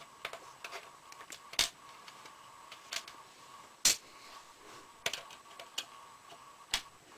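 Small screwdriver clicking and ticking against tiny screws as they are turned out of a laptop's plastic screen assembly: irregular sharp clicks a second or so apart, the loudest about four seconds in.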